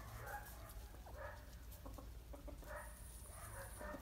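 Domestic chickens clucking, with a short call roughly every second.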